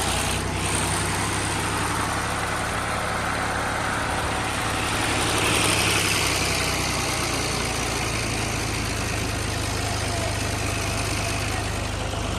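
Fiat 480 tractor's three-cylinder diesel engine running steadily under load, driving a wheat thresher, over the thresher's dense, even working noise. It swells slightly about halfway through.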